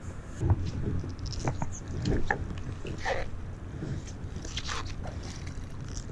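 Irregular crunching and clicking as muck, a small nail and bits of metal debris are handled and picked at on a magnet fishing magnet.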